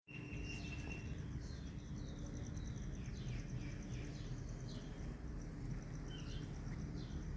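Birds chirping: several short falling chirps over a fast, even, high-pitched pulsing trill and a steady low background rumble.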